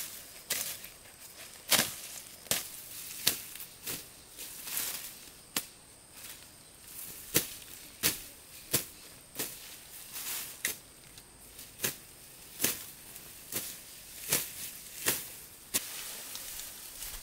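Grass and weed stems being cut by hand, a sharp slicing snap at each stroke, at a steady pace of a little over one stroke a second.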